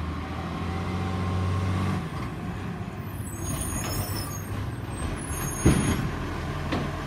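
Iveco side-loading recycling truck's diesel engine running as it drives up the street, a steady low note that eases off about two seconds in. A brief sharp sound cuts across it near the end.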